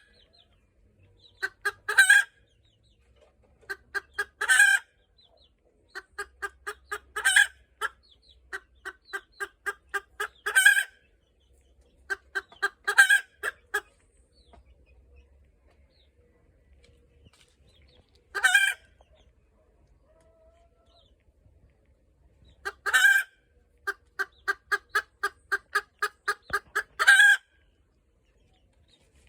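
Hen cackling its egg song after laying: runs of short clucks, each ending in a long, loud squawk, repeated about eight times with a short lull in the middle.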